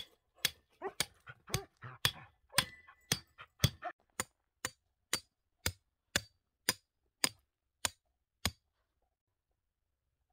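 A hammer striking a metal tent stake being driven into rocky, gravelly ground. There are about sixteen sharp blows at roughly two a second, and they stop about eight and a half seconds in.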